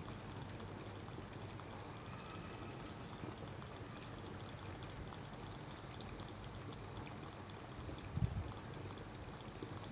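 Mud crab spraying water: a steady trickling, pouring sound. A low thump comes about eight seconds in.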